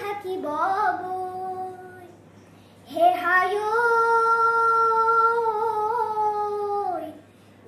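A young child singing a Bihu song unaccompanied: a short phrase, a brief pause, then one long held note that slides down at the end.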